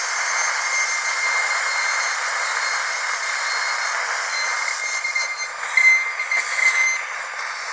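Dental drill whining steadily over a hiss, louder for a moment about six seconds in.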